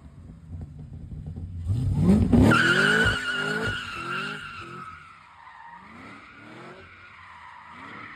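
Supercharged Cadillac CTS-V V8 revving hard, rising in pitch and loudest about two seconds in, while its rear tires squeal steadily in a skid; the engine pitch keeps bobbing up in short surges as the wheels spin.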